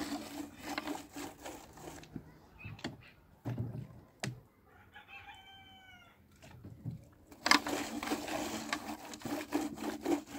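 A rooster crows once about five seconds in, after a few light knocks. From about seven and a half seconds comes the loudest part: a rushing, scratchy wash of noise as hands scrub a wet metal tray.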